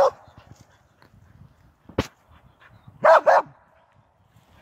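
A dog barking: one bark right at the start and a quick double bark about three seconds in, with a single sharp knock about two seconds in.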